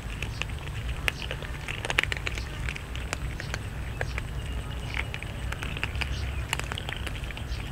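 Several cats crunching dry kibble together: a dense, irregular patter of small crunches and clicks over a low steady rumble.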